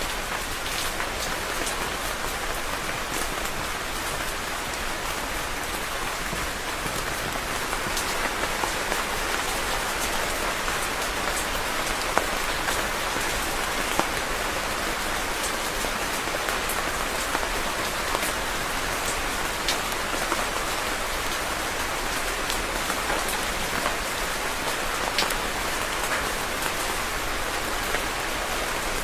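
Steady rain falling, with individual drops ticking sharply now and then over the even hiss.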